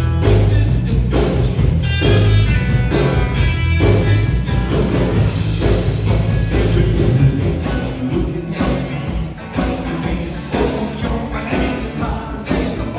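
Upbeat rock-and-roll style music with singing over a steady beat and heavy bass.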